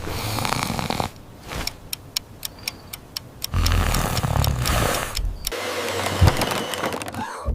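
A vacuum cleaner's motor running in uneven spells, with a quick run of sharp clicks in the second and third seconds and a deeper, louder rumble in the middle.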